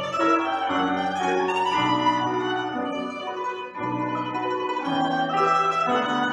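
Domra playing a slow folk-song melody, with piano accompaniment underneath.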